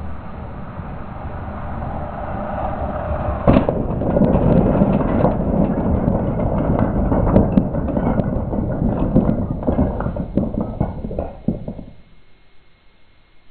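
A LEGO 7939 cargo train running along its track, growing louder, then a sharp crash about three and a half seconds in as it strikes a tower of wooden Jenga blocks. A long clatter of wooden blocks knocking and tumbling follows and cuts off suddenly about a second and a half before the end.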